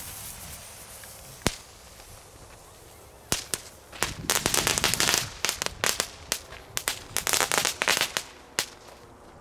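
A heap of category 1 firecrackers and crackling balls going off together, set off by one lit fuse. The fuse fizzes at the start, a single bang comes about a second and a half in, then a fast, dense run of cracks and bangs from about three seconds in until near the end.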